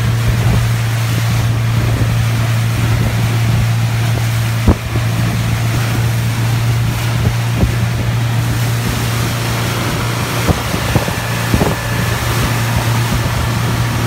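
A 150 hp outboard motor running steadily at cruising speed, with wind on the microphone and water rushing past the hull. A sharp knock stands out nearly five seconds in.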